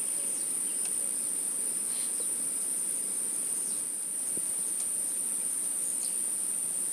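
Steady, unbroken high-pitched insect chorus, with a few faint ticks on top.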